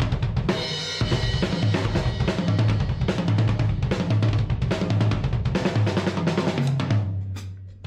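PDP Concept Maple drum kit with new heads being played: rapid bass drum, snare and tom strokes under cymbals, with a crash about half a second in. The playing stops near the end and a cymbal rings out.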